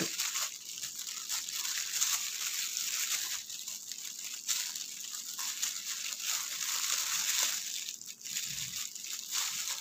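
Disposable plastic gloves crinkling while a small knife scrapes and slices along the ridged edges of adamant creeper (pirandai) stems, stripping off the fibrous corners. The sound is a continuous crackly rustle of many small scratches.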